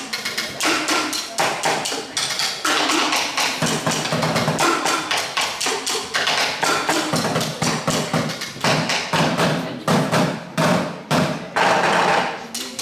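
Ensemble bucket drumming: several players beating drumsticks on plastic buckets in a fast, dense rhythm of sharp taps and thuds.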